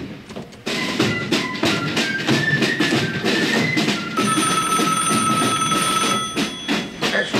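Upbeat music with drums. About four seconds in, a steady high electronic ring holds for about two seconds: the desk telephone ringing.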